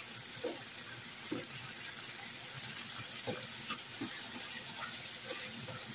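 Steady rushing hiss of a kitchen extractor hood fan over pork liver sizzling gently in a frying pan. A slotted spatula stirs and scrapes the pan a few times.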